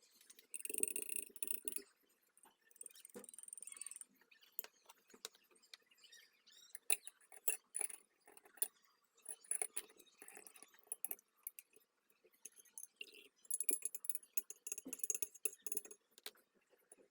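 Hands working on the small metal parts of a Zippo lighter: scattered sharp clicks and taps, with three short bursts of scraping, each one to two seconds long.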